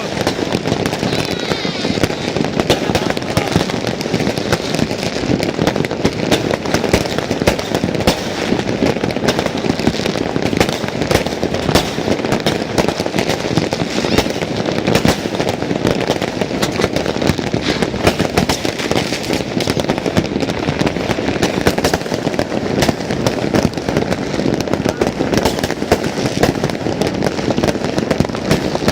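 Dense, continuous crackling and popping of many fireworks and firecrackers going off at once, a steady barrage with no pauses.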